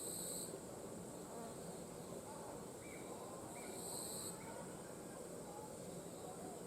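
Forest insects calling: a steady high-pitched drone with a louder half-second buzz at the start and again about four seconds in. A few faint short bird chirps come in between.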